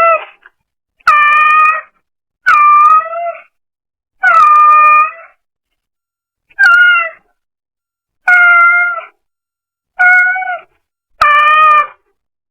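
A brown tabby cat meowing repeatedly: about seven short, fairly level meows, each lifting slightly at the end, one every second and a half or so. Picked up through a pet camera's microphone.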